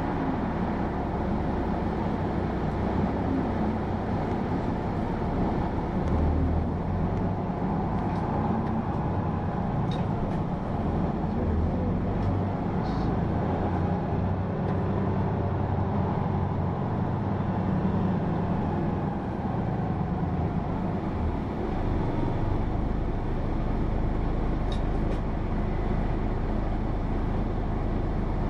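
Hino PA-KR234J1 diesel city bus heard from inside the cabin while running on the road, its engine note rising and falling as it pulls and changes speed, with a few faint clicks.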